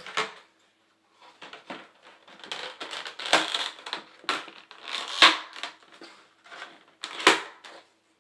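Large plastic Beyblade stadium being handled and pressed together: plastic parts scraping and creaking, with sharp clicks or snaps about three, five and seven seconds in, the loudest about five seconds in.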